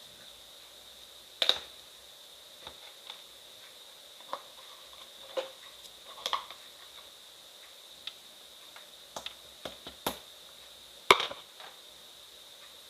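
Slime being handled by hand, giving scattered sharp clicks and pops at irregular intervals, the loudest near the end. A faint steady high-pitched tone runs underneath.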